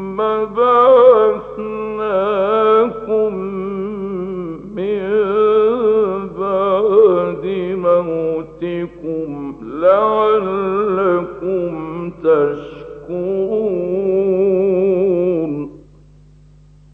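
A male reciter chanting the Quran solo in the melodic Egyptian style, with long held notes ornamented by wavering pitch runs and broken by short breaths; the voice stops near the end. A steady low hum from the old radio recording runs underneath.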